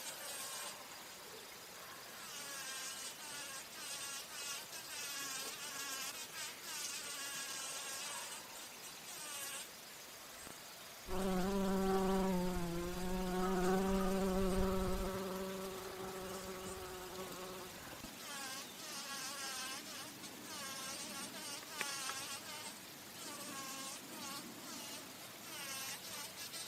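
Bumblebee buzzing in flight close by: a loud, steady low hum that starts abruptly about eleven seconds in, wavers slightly and fades out several seconds later. High, wavering chirps carry on faintly behind it.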